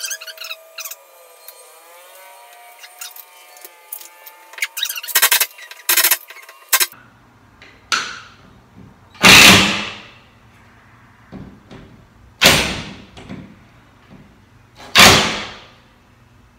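Cordless drill driven into a wooden ceiling stud in about four short bursts of roughly a second each, boring a pilot hole and running in screws for a mounting bracket. A few sharp knocks come first.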